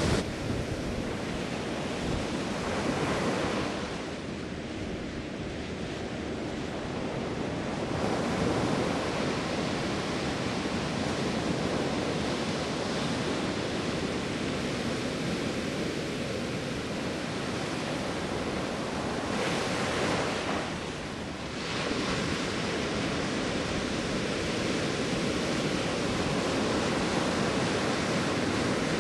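Ocean surf breaking on a beach: a continuous wash of waves that eases off twice and swells back up.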